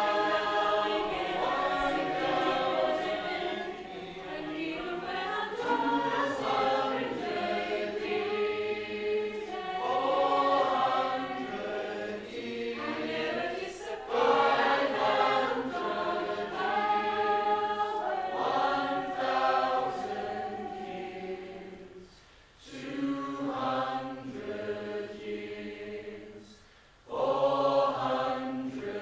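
A choir singing unaccompanied in shifting, layered harmony, with brief pauses about 22 and 27 seconds in before the voices come back in strongly.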